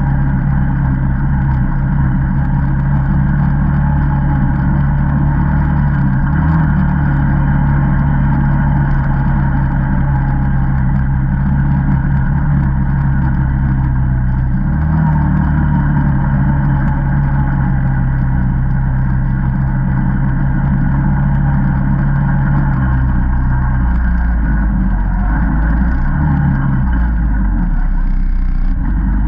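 Single-cylinder four-stroke ATV engine running steadily under way, with brief small rises in engine speed. About three-quarters of the way through the note drops lower as the machine slows toward idle.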